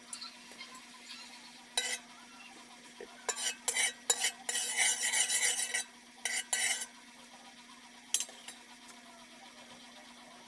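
Metal tongs scraping and clinking against the inside of a large metal wok: a single clink about two seconds in, a run of quick stirring strokes from about three and a half to seven seconds, and a last clink about eight seconds in.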